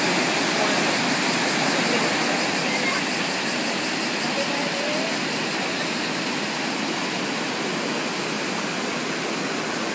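Steady rush of river water pouring over a low stone weir and churning through rapids.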